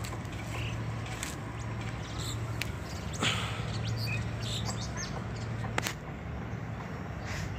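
Birds chirping now and then over a steady low hum, with a sharp knock about three seconds in and another near six seconds.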